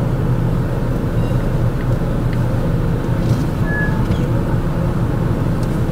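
A car driving along, with a steady low engine hum and road noise.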